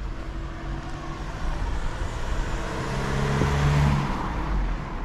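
A motor vehicle passing close by on the street: engine hum and road noise build to a peak about three and a half seconds in, then fade.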